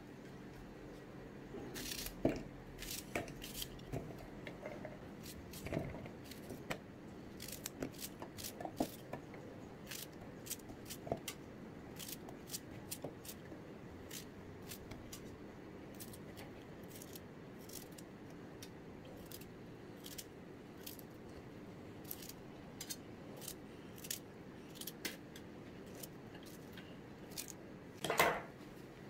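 Knife cutting tomatoes, onions and ginger by hand, with the pieces dropping into a stainless-steel mixer-grinder jar: an irregular scatter of faint clicks and taps, with a louder clatter near the end.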